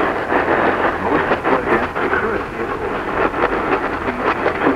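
A voice coming through heavy static and crackle over a steady low hum, as on a noisy radio alert broadcast.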